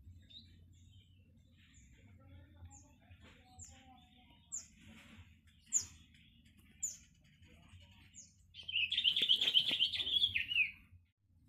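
Birds calling: a short, high, falling chirp repeated about once a second, then a louder chattering trill lasting about two seconds near the end.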